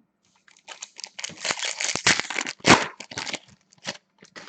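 A sports-card pack wrapper from a box of 2015-16 Upper Deck Artifacts being torn open and crinkled by hand: a quick series of rips and crackles, loudest about two and a half seconds in, then a few lighter crinkles.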